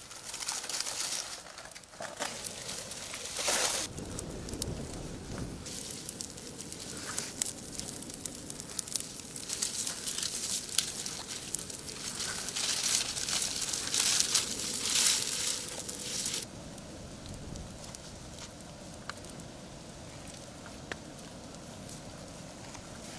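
Freshly lit bonfire of stacked dry wooden poles catching and burning, with dense, rapid crackling and popping. About 16 seconds in the crackling drops to a quieter hiss with only a few scattered pops.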